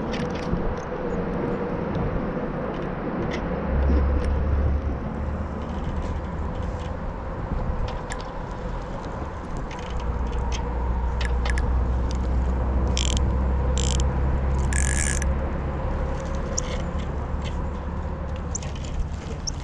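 Spinning reel being cranked on a slow retrieve, its gears whirring steadily, with sharp clicks now and then. A low rumble comes in briefly and then holds through the second half.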